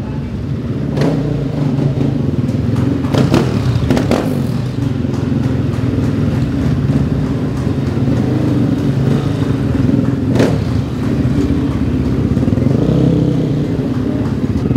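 Several KTM rally motorcycles running at low revs as they ride slowly in, the engines' steady note overlapping throughout. A few sharp knocks stand out about a second in, around three to four seconds in, and again near ten seconds.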